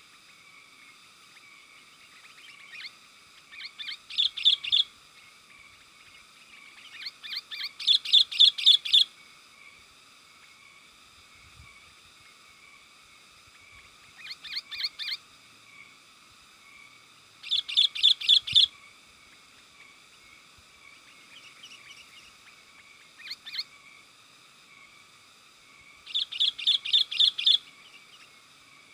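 Sooty-headed bulbul (kutilang) singing: bursts of quick, chattering notes, each lasting a second or two and repeating every few seconds, over a steady background hiss.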